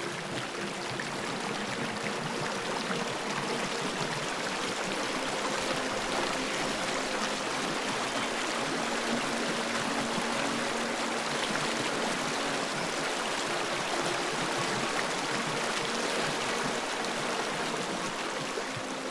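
Creek water flowing, a steady even rush.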